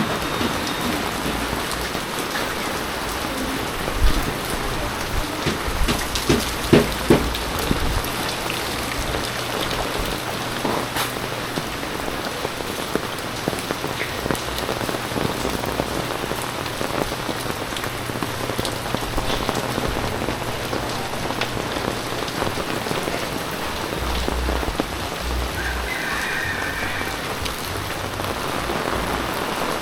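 Heavy typhoon rain falling steadily, with a few sharp knocks or drips about four seconds in and again around six to seven seconds in.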